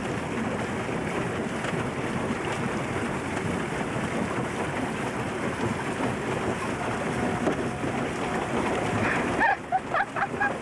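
Steady rushing noise of water and wind as a pedal-powered cycle boat moves across the water, with wind on the microphone. It cuts off suddenly near the end, where voices begin.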